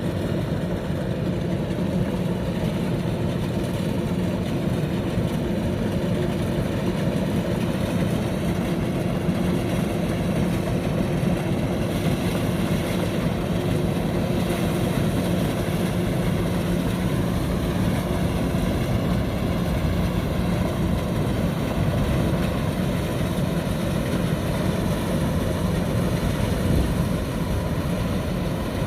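Kubota DC-105X combine harvester running steadily: a continuous diesel engine drone mixed with the rumble of its machinery.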